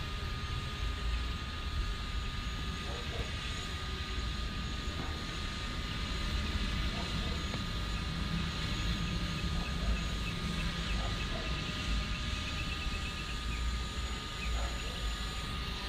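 DJI Mavic Air quadcopter's propellers buzzing steadily in flight, over a low uneven rumble.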